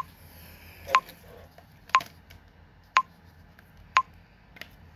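TikTok app's recording countdown timer beeping once a second: five short, identical beeps.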